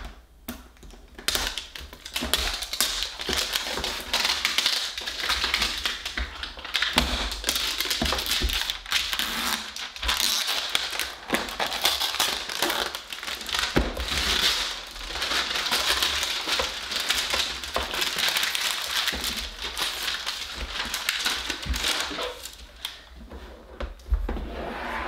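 Paper wrapping being torn and crinkled off a hard plastic toy case, a continuous crackling rustle full of small clicks, with occasional knocks of the plastic case. The rustling eases off near the end.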